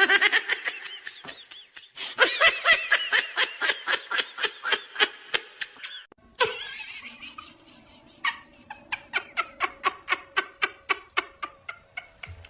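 Laughter in quick pulses, about four or five a second. A cut about six seconds in leads to a second, quieter run of pulsed laughing.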